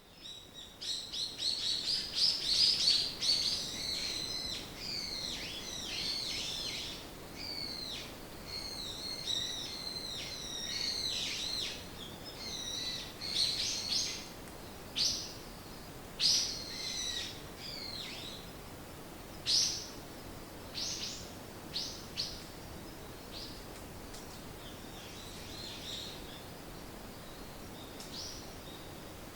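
Forest songbirds chirping and trilling. The sound rises from silence at the start, with many overlapping calls for the first dozen seconds, then fewer, separate short calls over a faint steady hiss.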